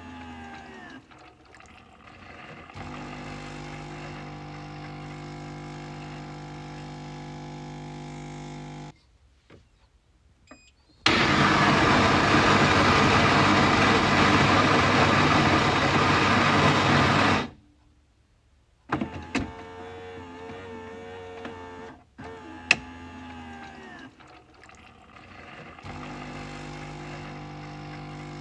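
Coffee machine working through its cycle: a steady motor or pump hum for about nine seconds, a brief pause, then a loud, even noisy rush lasting about six seconds, followed by a few clicks and the hum starting up again.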